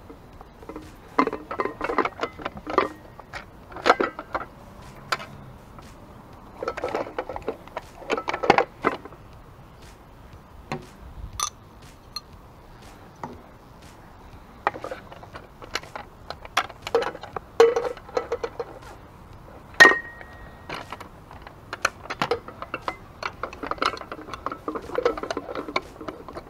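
Metal headlight bracket, bolt and nut being fitted by hand to a motorcycle fork: irregular clinks and rattles of metal on metal. About twenty seconds in comes one sharper clink that rings on briefly.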